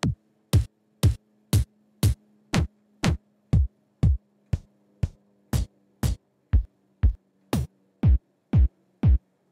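Electronic kick drum samples from an Ableton Live drum rack playing a steady four-on-the-floor beat, about two kicks a second, each hit dropping quickly in pitch. The kick's character changes from hit to hit as the chain-selector macro steps through different kick samples.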